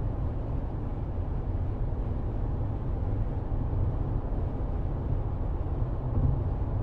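Steady low rumble of a car's engine and tyres, heard from inside the cabin through a dashcam microphone.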